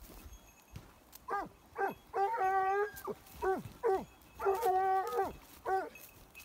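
A dog giving tongue in a rhythmic run of calls: two short yelps that drop in pitch, then a drawn-out howl. The pattern comes twice and ends on one more yelp.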